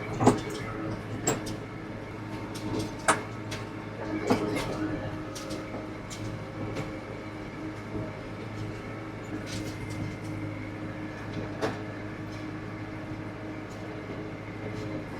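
Tractor engine running steadily while pulling a round baler through the hay, with sharp clanks or knocks from the rig every few seconds.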